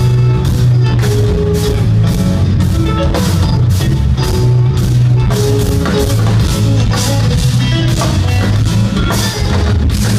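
Instrumental progressive metal played live: two extended-range eight-string electric guitars playing heavy low riffs and a drum kit with busy cymbal strikes, with no vocals. It is heard from within the audience.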